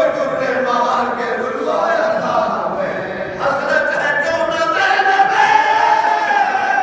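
Group of men chanting a marsiya, the Shia elegy, unaccompanied: a lead reciter with the others joining in chorus, holding a long note through the second half.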